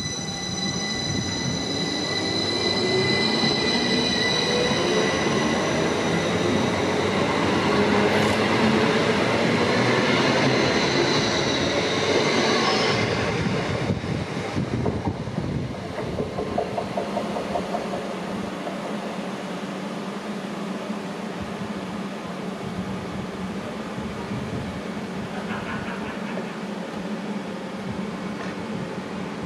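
Electric multiple-unit train's traction motors whining, rising in pitch as it gathers speed over the first dozen seconds, then dropping away about halfway through to a steady lower rumble.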